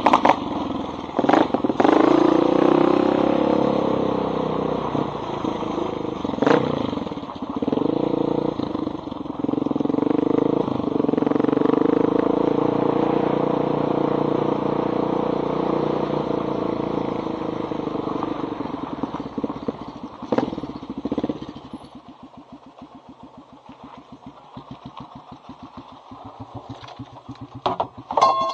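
1985 Honda XR350R's single-cylinder four-stroke engine, fitted with a loud exhaust pipe, running steadily as the bike is ridden. It fades gradually, then settles to an even, pulsing idle about 22 seconds in. A short knock comes near the end.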